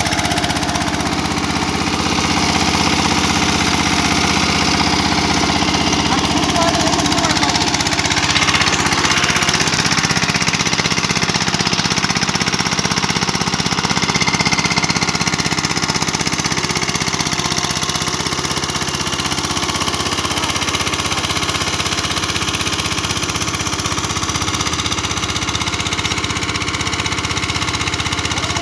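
Captain 20 HP mini tractor's diesel engine running steadily.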